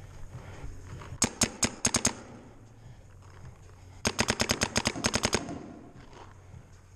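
Paintball marker firing two rapid strings of shots: about six cracks a little over a second in, then a longer string of about a dozen fast shots around four seconds in.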